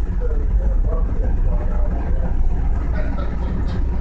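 SEPTA Market-Frankford El subway car running with a steady low rumble, heard from inside the car as it comes into a station.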